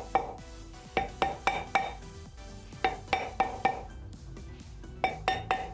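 A copper-headed hammer tapping on the flywheel of a Lotus 910S engine: about a dozen light strikes in quick runs of three or four, each with a short metallic ring from the flywheel. The flywheel is stuck on its crankshaft dowels and does not come free.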